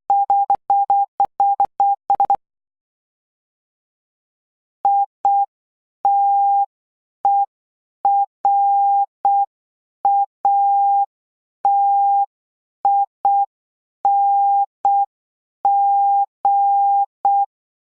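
Morse code practice tone, a single steady pure beep keyed into dots and dashes. A quick run of code is sent in the first two seconds. After a short pause, a word is sent slowly, letter by letter, spelling I-T-E-R-A-T-I-N-G ("iterating").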